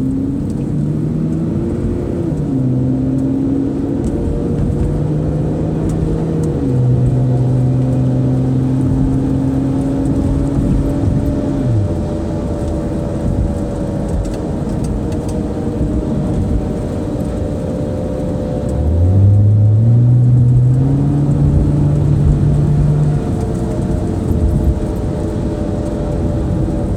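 2005 Saturn Vue driving at speed: a droning hum at several pitches over steady road noise, stepping lower a few times, fading out about twelve seconds in and coming back, rising quickly, about nineteen seconds in. The hum comes with higher speeds and is not cured by new hub bearings on both sides, so its cause is still unknown.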